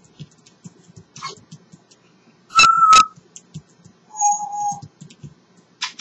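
African grey parrot whistling two steady notes: a short, higher note with a sharp click at each end about two and a half seconds in, then a longer, lower note about a second later. Faint scattered clicks come between them.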